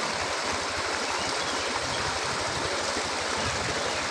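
Water gushing from the end of a pipe and splashing onto rocks in a small brook that cascades alongside: a steady rushing splash.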